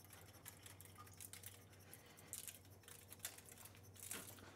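Faint, scattered clicks of a pepper grinder being turned, seasoning a glazed gammon, over near-silent room tone.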